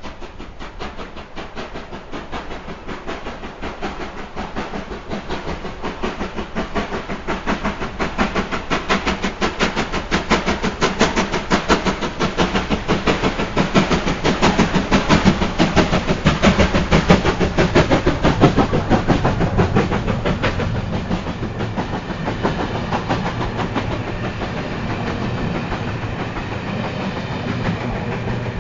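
LNER B1 4-6-0 steam locomotive working hard with the regulator open, its exhaust beating rapidly and getting louder as it passes at close range. It is followed by the steadier rumble and wheel clatter of coaches rolling by.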